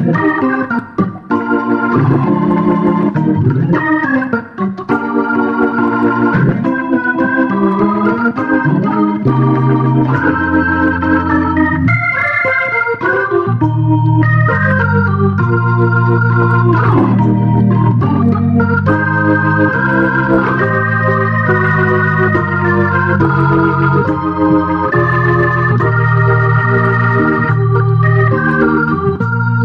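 Instrumental background music: an organ-like keyboard tune, with a sustained bass line coming in about ten seconds in.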